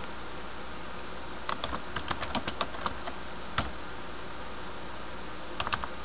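Slow typing on a computer keyboard: a run of about ten separate key clicks starting about a second and a half in, a single click in the middle and a few more near the end, over a steady faint hiss.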